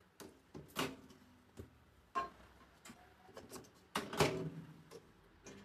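Scattered handling clicks and knocks around a tabletop microwave oven, with the loudest clack from its door about four seconds in. Right at the end the oven is switched on and starts a low, steady hum.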